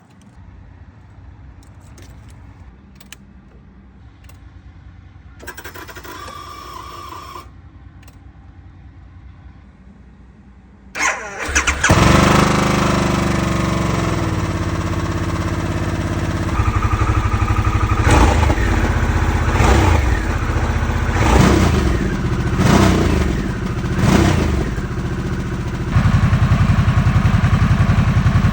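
Harley-Davidson Sportster S's Revolution Max 1250T V-twin started up: after a quiet stretch with a brief buzz about six seconds in, the engine catches about eleven seconds in and runs at a fast idle that settles down. It is then blipped five times in quick rises and falls of pitch, and runs louder and steady near the end.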